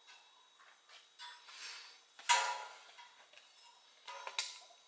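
Light clinks and scrapes of stamped-steel engine mount brackets knocking against each other and the hanging wire as they are threaded on, with the loudest clink about two seconds in and a few more near the end.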